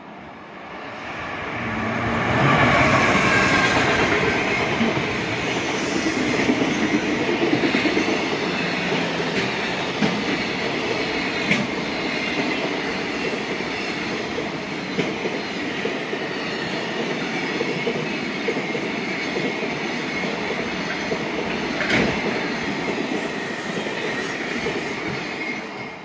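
Electric freight train of container wagons passing close by: a loud rumble and clatter of wheels on the rails that builds over the first two or three seconds as the locomotive arrives. It stays loud as the wagons roll past, with a few sharp clacks, and begins to fade near the end.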